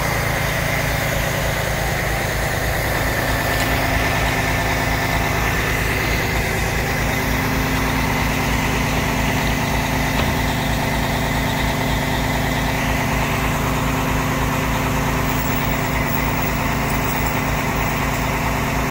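Engine of a propane-fuelled Heli 5000 lb pneumatic-tyre forklift running steadily at low revs.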